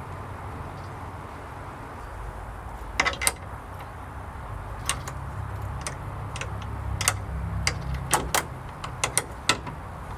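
Sharp metal clicks and knocks of a gate's hasp latch hardware being handled, a pair about three seconds in and more, singly and in pairs, through the second half, over a steady low rumble.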